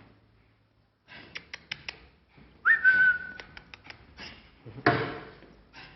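A short whistled note that dips slightly in pitch and is held for under a second, among a few quick sharp clicks; a louder noisy burst follows near the end.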